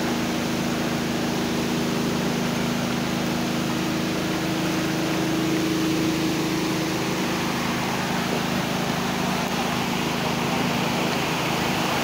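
Rushing of a flood-swollen river, a steady wash of water noise that grows brighter near the end as the water pouring over a bridge clogged with flood debris comes close. A steady low mechanical hum runs under it for the first seven seconds or so, then fades.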